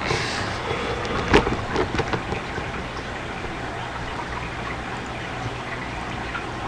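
Steady low electrical hum with faint hiss, with one sharp click about a second and a half in and a few lighter clicks just after.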